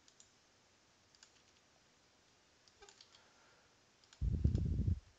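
A few faint computer mouse clicks, then a loud, low, muffled rumble lasting under a second near the end.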